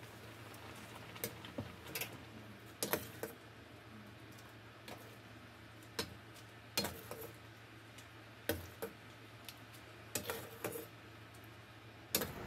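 Cutlery and dishes clinking: irregular light taps and clicks of utensils against bowls and plates, some with a brief ring, coming in small clusters.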